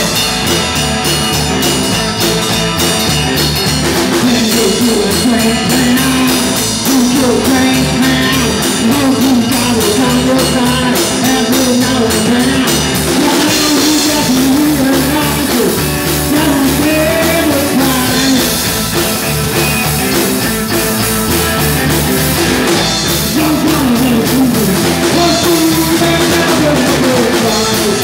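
A small rock-and-roll band playing live: a man singing over guitar, upright double bass and drum kit.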